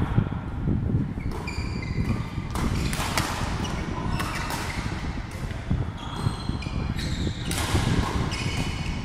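Badminton rally on an indoor court: sharp racket strikes on the shuttlecock about once a second, with brief high squeaks of sports shoes on the court floor between them. A steady low rumble runs underneath.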